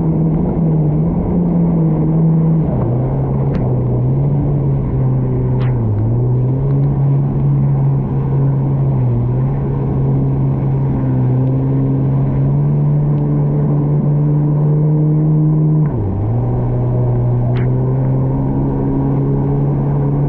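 Yamaha VXR WaveRunner's 1.8-litre four-stroke engine running at cruising speed, a steady drone. Its pitch steps down about three seconds in, then dips briefly a few times, most deeply about sixteen seconds in, as the throttle is eased and reapplied.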